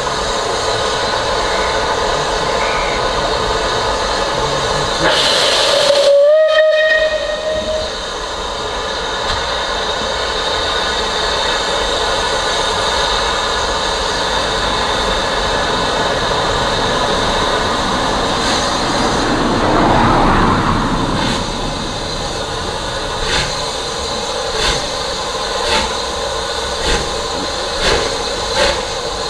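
Rebuilt Bulleid Pacific steam locomotive with steam hissing steadily. A short whistle sounds about six seconds in. Over the last few seconds it starts its train away with slow exhaust beats, about one a second and quickening.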